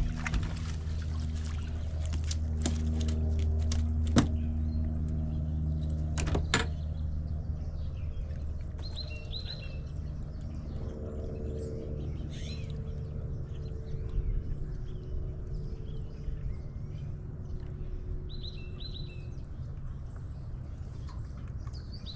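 A boat engine running with a low, steady hum that fades after about seven seconds, with a couple of sharp knocks about four and six and a half seconds in. Birds chirp now and then through it.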